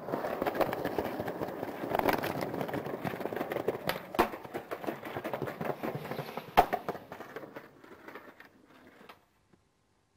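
Skateboard wheels rolling over rough, cracked concrete paving slabs, with knocks at the slab joints and a sharp clack about six and a half seconds in. The rolling fades out and stops near the end.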